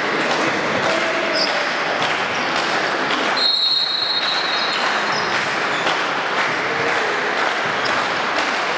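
Crowd and court noise in a sports hall during a volleyball match, with a referee's whistle blown once for about a second, about three and a half seconds in, and a few short shoe squeaks on the court.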